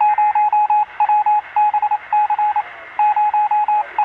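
A single beeping tone heard over radio, keyed on and off in quick groups of short and long beeps, like a Morse-code pattern, over a steady hiss.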